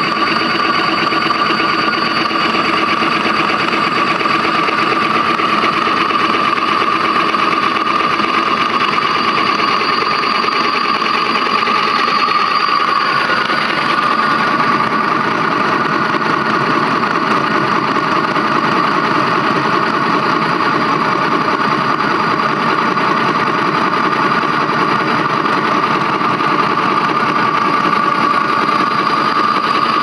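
Large LG washing-machine motor-generator rig running steadily off a power inverter, making a loud, even mechanical running noise with a steady high whine. The whine shifts slightly in pitch about halfway through.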